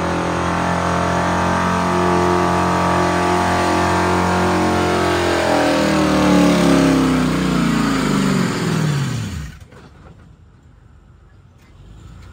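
A competition pulling vehicle's engine running hard at steady high revs. It then winds down in pitch over about three seconds and stops about nine and a half seconds in.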